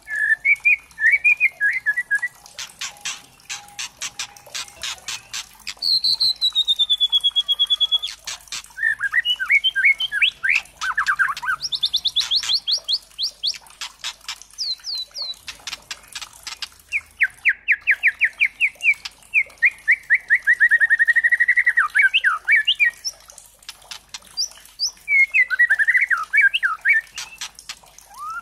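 Young white-rumped shama (murai batu trotol) calling and singing. Runs of rapid dry clicking rattles, the 'kretekan', alternate with a falling whistle and fast trilled phrases.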